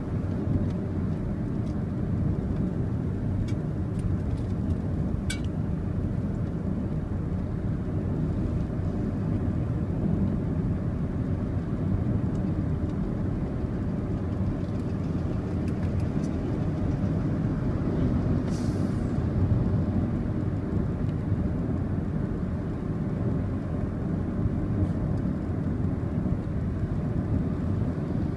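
Steady road noise of a car at highway speed, heard from inside its cabin, with a brief hiss about two-thirds of the way through.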